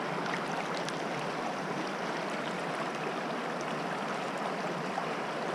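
Shallow stream running over stones: a steady watery rush, with a few faint small splashes as a hand lifts a rock out of the water.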